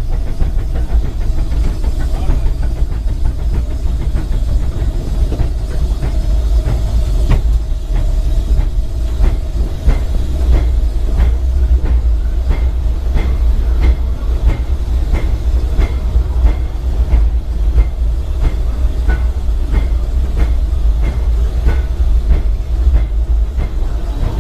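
Ride on the tender of the Ernest S. Marsh, a narrow-gauge steam locomotive, under way: a steady loud low rumble of the moving train, with a regular clicking of about one and a half beats a second coming in a third of the way through and running until near the end.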